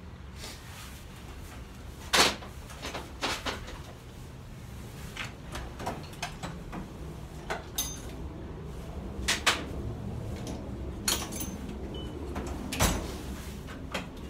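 Scattered knocks and clatter of tools being handled and a metal tool chest drawer sliding open and shut, with the loudest knocks about two seconds in and shortly before the end.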